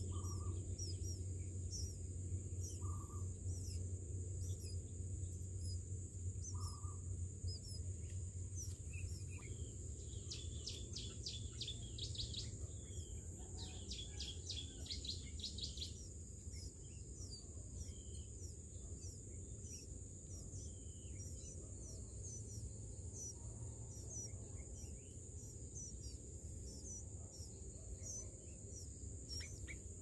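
Bulbul nestlings begging at the nest, with two bursts of rapid, high-pitched repeated calls about a third of the way in. Scattered short chirps and a steady high insect drone run beneath.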